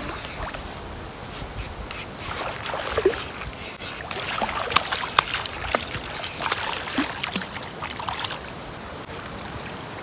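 Creek water trickling, with scattered sharp clicks and knocks between about two and eight seconds in.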